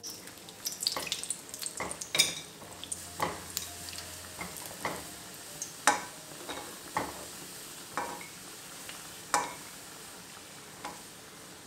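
Cashew nuts frying in ghee in a non-stick kadai: a steady sizzle under irregular taps and scrapes of a spatula stirring and scooping them against the pan.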